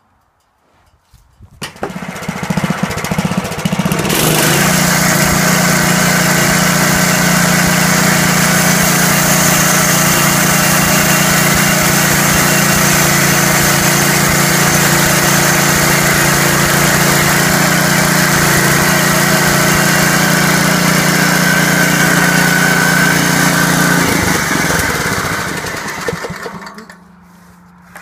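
Engine of a portable bandsaw sawmill comes on about two seconds in, rises to full speed by about four seconds and runs steadily while the band blade cuts a slice off an upright hemlock log. It slows and dies away near the end.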